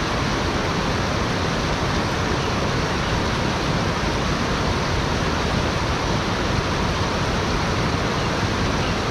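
Shallow rocky stream rushing over stones, a steady, even rush of water.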